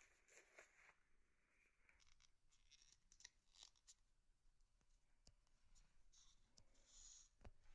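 Near silence: room tone with a few faint clicks and soft rustles.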